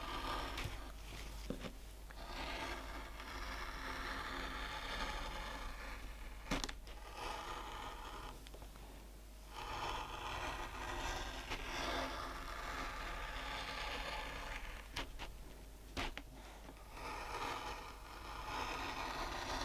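Linocut gouge pushed through a linoleum block in long carving strokes: about six scraping passes of two to four seconds each, with short clicks between strokes as the blade lifts and sets again.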